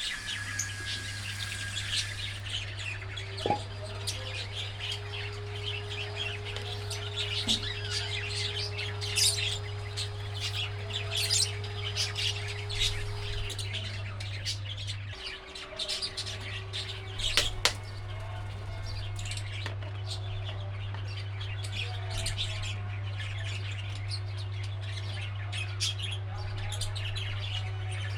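A flock of pet budgerigars and lovebirds chirping and chattering continuously, over a steady low hum that cuts out briefly about halfway through.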